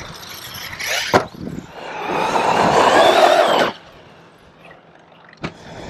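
6S electric RC monster truck being driven: a sharp knock about a second in, then under two seconds of motor whine and tyre noise that stops abruptly, and a faint click near the end.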